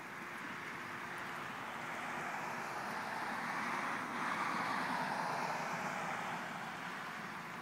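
A vehicle passing by, its tyre and road noise swelling to a peak about halfway through and then fading away.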